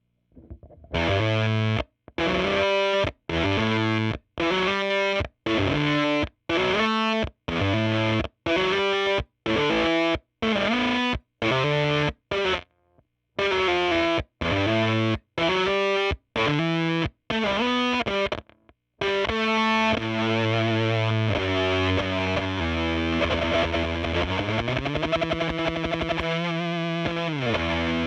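Electric guitar played through a Jext Telez Dizzy Tone V7 germanium-transistor fuzz pedal: a string of short, choppy fuzzed chords, each cut off sharply, about one a second, then sustained fuzzed playing with a rising slide in pitch near the end. The fuzz is tight, with a thick mid-range snarl.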